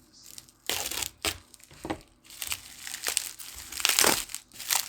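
Packaging crinkling and rustling in irregular bursts as an item is unwrapped by hand, loudest near the end.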